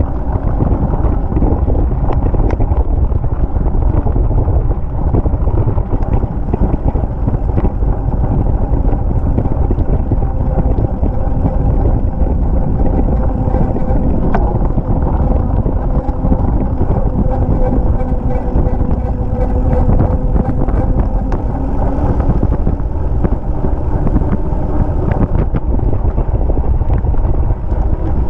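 Steady wind rushing over the microphone of a GoPro action camera carried on a moving bicycle, with road noise from the tyres and occasional small knocks.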